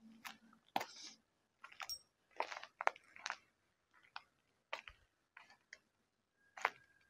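Footsteps crunching over gritty debris: a dozen or so short, irregular crunches with quiet gaps between them.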